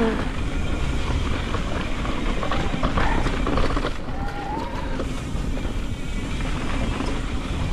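Electric mountain bike riding a rolling dirt trail: steady rumble of tyres and rattle of the bike, with wind buffeting the camera's microphone and a few short knocks about three seconds in.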